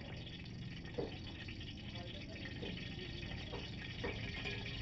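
Cooking oil heating in an aluminium wok over a gas burner, a light steady sizzle with a few small pops.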